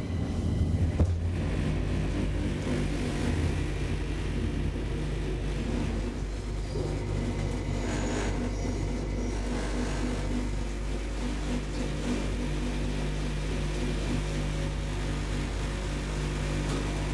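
Deve Schindler hydraulic elevator car travelling in its shaft, heard from inside the cab: a steady low hum and rumble from the hydraulic drive and the moving car, a little louder in the first second or so.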